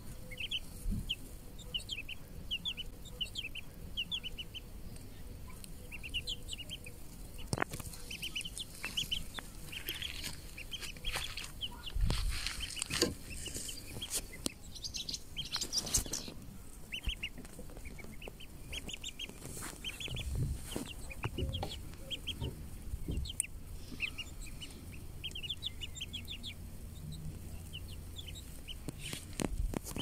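Chicks and ducklings peeping in quick, high chirps, with a few rustles and knocks, the loudest about twelve and sixteen seconds in.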